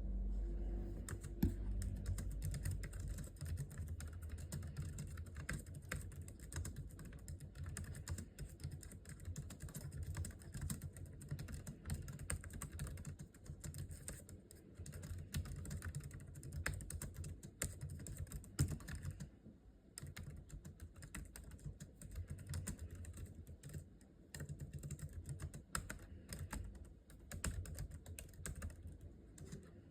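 Continuous fast typing on a Logitech K380, a low-profile keyboard with scissor-switch keys. Its key clicks run in quick streams, with a short pause about two-thirds of the way through.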